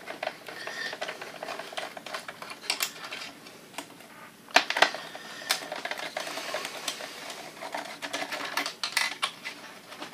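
Irregular small clicks, taps and scrapes of a screwdriver and screws being handled while the plastic fan housing of a Kodak Carousel slide projector is unscrewed. A few sharper clicks stand out, about three, five and nine seconds in.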